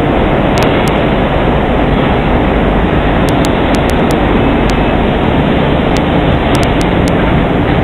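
Loud, steady machine noise from a leaf spring eye milling machine running.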